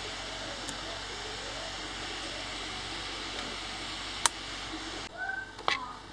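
Steady whir of a 3D printer's fans with a faint high tone, broken about four seconds in by one sharp click as a printed part is pulled off the bed. Near the end the whir stops and plastic tread parts click and squeak in the hand.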